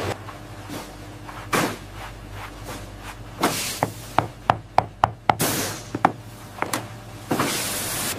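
A shoemaker's hammer tapping leather over a shoe last: a run of about a dozen sharp knocks, most of them in the middle few seconds, over a steady low hum.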